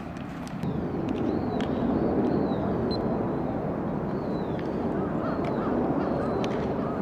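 A steady rushing noise of the outdoors that swells about half a second in, with birds chirping several times in short calls that rise and fall.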